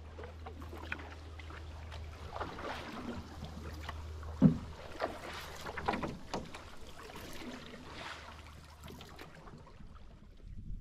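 Canoe paddling: paddles dipping and pulling through river water in irregular strokes, with a sharp knock about four and a half seconds in, over a low steady rumble.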